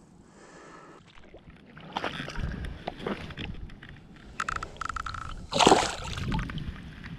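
Shallow water sloshing and splashing as a bream is lowered in by hand and released, with the loudest splash about two-thirds of the way through as the fish kicks free.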